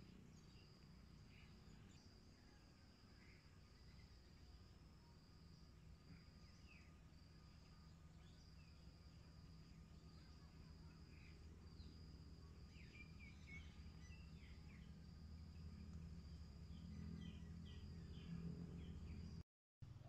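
Faint field ambience: an insect's steady high-pitched trill that breaks off briefly every second or so, scattered faint bird chirps, and a low rumble that grows a little louder toward the end. The sound cuts out completely for a moment near the end.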